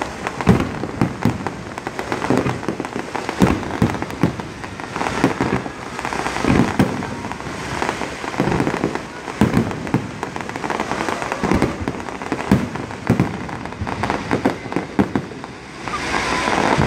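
Aerial fireworks bursting: many bangs in quick, irregular succession over continuous crackling.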